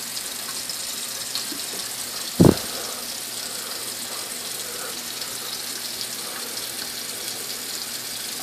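Water running steadily from a tap into a sink, with a single dull thump about two and a half seconds in.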